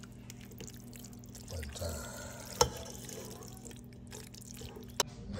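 Spaghetti in tomato sauce being stirred and tossed with a spatula in a pot, a wet squishing and scraping, with two sharp knocks: one about two and a half seconds in and one near the end.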